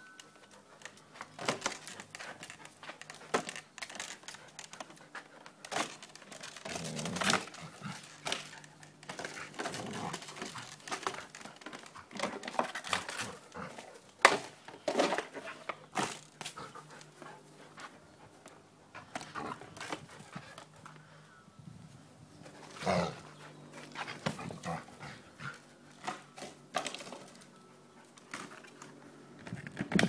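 A Samoyed making noises as it plays with a ball, in short separate sounds with gaps between, mixed with scattered knocks and rustles.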